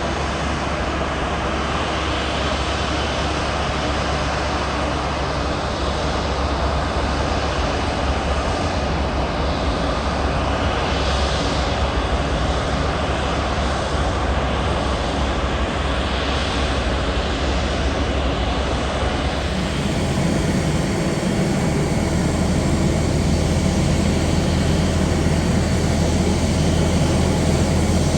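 Jet airliner engines running continuously. The sound sweeps slowly in tone through the middle, and about two-thirds of the way in it turns deeper and slightly louder.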